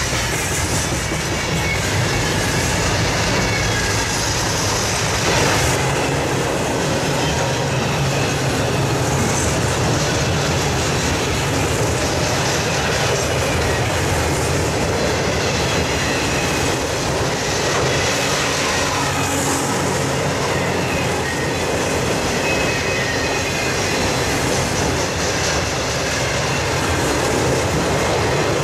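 Freight train's boxcars and autorack cars rolling past close by: steel wheels on the rails making a steady, loud rumble that doesn't let up.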